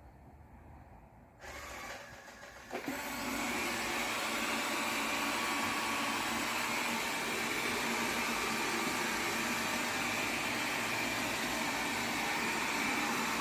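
Robot vacuum cleaner running. It starts up in two steps over the first few seconds, then runs steadily with a faint high whine.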